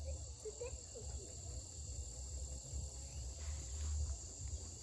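Insects chirring steadily, with a low, uneven rumble of air buffeting the microphone beneath.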